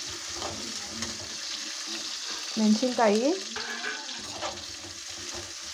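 Sliced onions sizzling steadily as they fry in oil in a pan over a low flame.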